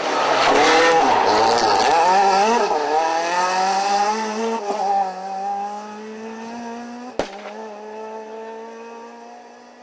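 Renault Clio rally car passing close at full throttle, loudest about a second in, then accelerating away with rising revs broken by gear changes and fading into the distance. A single sharp click about seven seconds in.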